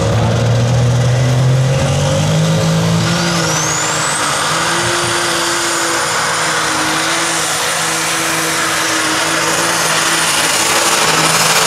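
Super stock pulling tractor's methanol-fuelled, turbocharged engine running hard while hauling the weight sled. A high whine rises about three seconds in and then holds steady.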